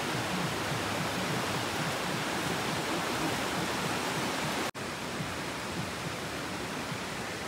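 Steady rushing of a monsoon-swollen stream, with a brief break about two-thirds of the way through.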